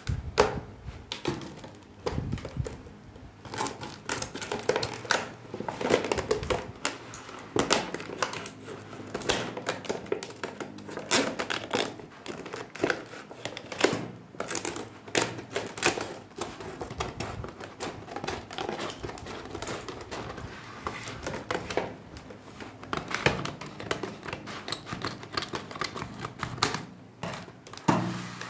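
Stiff clear plastic blister packaging crackling, crinkling and snapping with irregular sharp clicks as it is handled and pulled open by hand.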